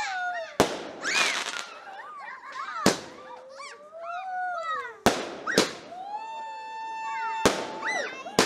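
Fireworks going off: about six sharp bangs a second or two apart, with whistling fireworks gliding up and down in pitch between them and one steady whistle held for over a second near the end.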